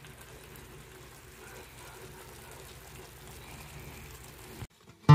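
Faint, steady simmering of the stir-fry's sauce in the wok, cutting off suddenly near the end.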